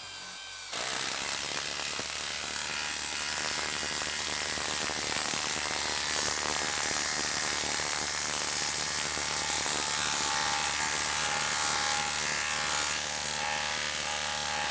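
Milwaukee M12 Fuel brushless impact driver hammering steadily as it drives a 4-inch lag screw into a log, starting abruptly about a second in.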